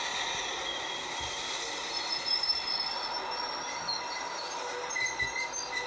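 Amtrak bi-level passenger cars rolling past close by as the train comes into the station, a steady rush of wheels on rail. From about two seconds in, thin high-pitched wheel squeals join it.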